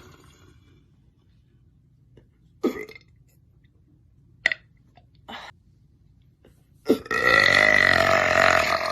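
A woman burping: a few short, small sounds, then one long, loud burp of about two seconds near the end, its pitch rising slightly at the start and then holding steady.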